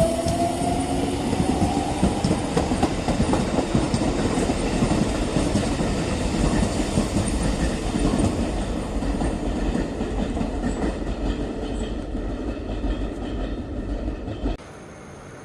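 Electric train running past: steady rushing noise with wheels clattering over the rails, and a rising motor whine that fades in the first second or two. The sound cuts off suddenly near the end.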